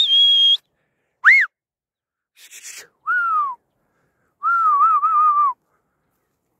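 A shepherd whistling with the mouth at a grazing flock, four separate whistles in all. The first is long, high and level, the second short, rising and falling, the third falls in pitch, and the last is longer and warbling. A short breathy hiss comes between the second and third.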